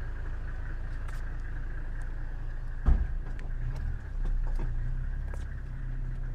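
A vehicle running with a steady low rumble, with a sharp thump about three seconds in; the low hum changes pitch about a second later.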